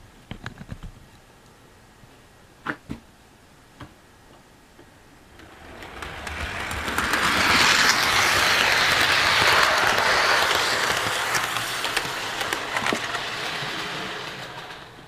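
A few light clicks as a model engine is set down on the layout, then an HO scale model steam locomotive running past on the track. Its motor and wheels on the rails build up over a few seconds, are loudest in the middle and fade away as it passes.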